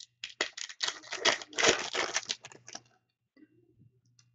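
Crinkling and rustling of a foil trading-card pack and its cards being handled, a quick run of crackles and clicks that stops about three seconds in.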